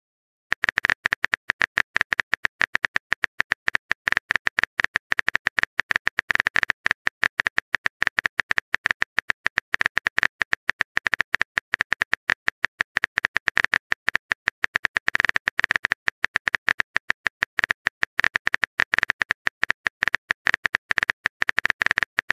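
Phone keyboard typing sound effect from a texting-chat app: a fast, uneven run of sharp clicks, starting about half a second in, as a message is being typed.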